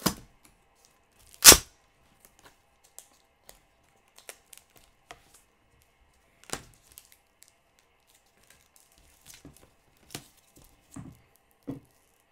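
Packing tape being peeled and ripped off a wrapped package: one sharp, loud rip about a second and a half in, then scattered smaller tears and crinkles.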